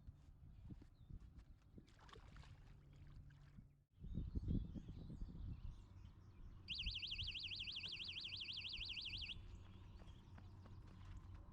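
An electronic alarm warbles for about three seconds, a high tone sweeping rapidly up and down about seven times a second, starting a little past halfway and cutting off abruptly. Before it come low rumbling and thumps over a faint outdoor background.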